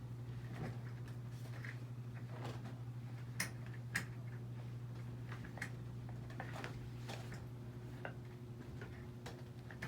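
Scattered light clicks and taps over a steady low hum, with two sharper clicks close together about three and a half seconds in.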